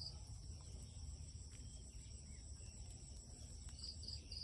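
Faint insects chirping: a steady, fast high-pitched trill, joined near the end by a slower run of high chirps about three a second, over a low background rumble.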